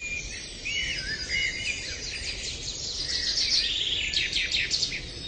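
Songbirds calling: short whistles that rise and fall, and quick runs of high chirps that grow busier about halfway through, over a low steady background hiss.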